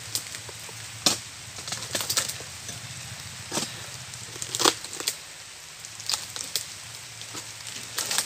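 Irregular sharp chops of a long-handled oil palm harvesting pole struck into the frond stalks at the base of a young palm to cut the fruit bunch free, about nine strikes roughly a second apart, over a steady hiss of rain.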